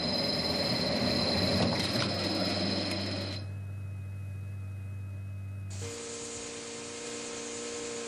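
Mechanical whirring and hum of a legged walking robot's motors. The character of the sound changes abruptly twice, about three and a half seconds in and again near six seconds.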